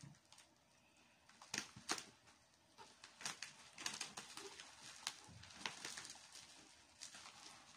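Bubble wrap being handled and cut with scissors: faint, irregular crinkles and clicks that start about a second and a half in.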